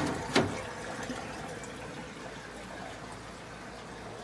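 Aquarium water running steadily, the trickle and splash of the tank's overflow and filtration. A single sharp knock sounds about half a second in.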